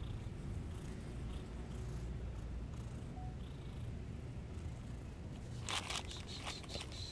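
Cat purring close to the microphone, a steady low rumble, with a short run of clicks and rustling about six seconds in.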